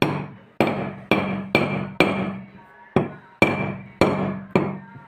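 Sharp metal-on-metal taps, about two a second, each ringing briefly: the worn spot on a fan motor's shaft is being struck with a file or chisel edge to raise the metal so the loose bearing will grip it tightly.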